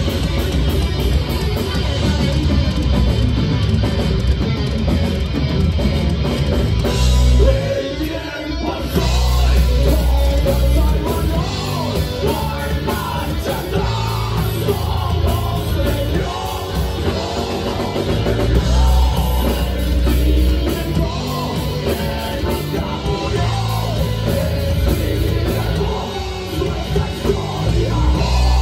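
Heavy metal band playing live: distorted electric guitars, bass and drums with a singer's vocals on top. The band drops out briefly about eight seconds in, then comes back in full.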